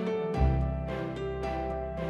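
Gentle instrumental background music, notes struck in a slow even pulse, with a deep bass note coming in about half a second in.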